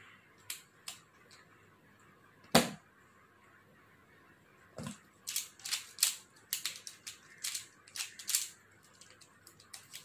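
Plastic Pyraminx puzzle being turned fast in a speed-solve: a quick, uneven clatter of clicks for about five seconds starting around halfway. Before it there are a few scattered clicks and one louder knock.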